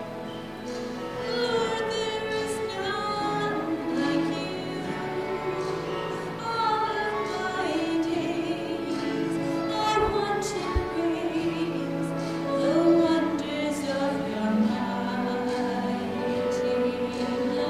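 Singing with instrumental accompaniment: a hymn or anthem, sung notes held and moving over a steady accompaniment.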